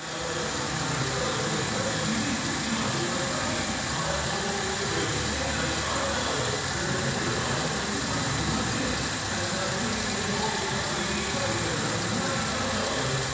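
Holden Commodore 3.6-litre V6 engine idling steadily.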